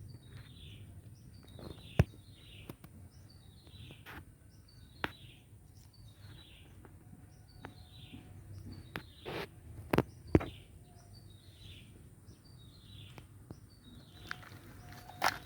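A bird calling over and over, a short falling chirp about every second. A few sharp knocks or taps sound among the calls, the loudest a pair about ten seconds in.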